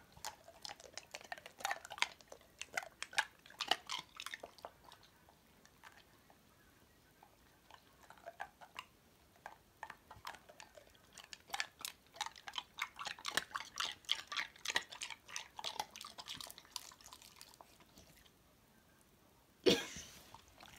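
Border Collie crunching ice cubes: runs of sharp crunches and clicks separated by short pauses. Near the end there is one louder burst.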